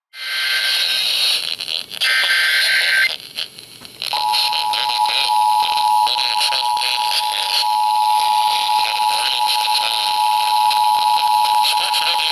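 Emergency Alert System tones received over a hissy radio signal. Two short data-burst tones come first (the SAME header), then about four seconds in the two-tone attention signal starts: a steady dual tone (853 and 960 Hz) held to the end.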